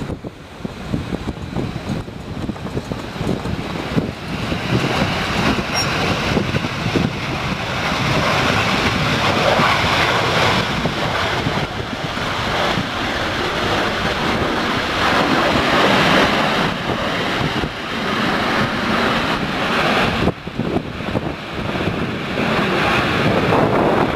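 Jet engine roar from a Boeing 727 on its takeoff roll, building over the first several seconds and then staying loud, with wind buffeting the microphone.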